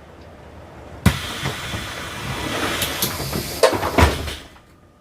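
Pneumatic doors of an older Mercedes-Benz Citaro bus working: a sharp click about a second in, then a steady hiss of air, with two thumps near the end as the door leaves reach their stops, after which the hiss dies away.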